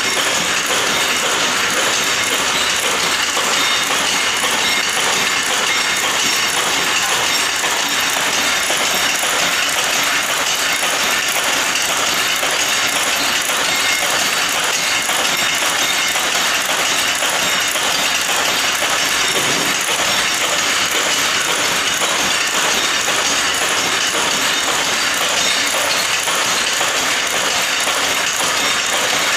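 Barbed wire making machine running, a steady, loud metallic clatter.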